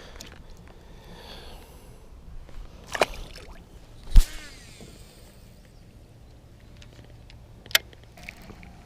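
Three sharp knocks on a kayak, about three, four and eight seconds in, as gear is handled aboard. The middle knock is the loudest and deepest.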